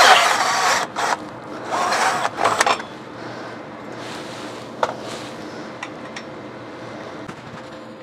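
Cordless drill cutting into the steel exhaust pipe to make the opening for an oxygen-sensor bung, running in a few short bursts that stop about three seconds in. After that there is faint scraping and one sharp click.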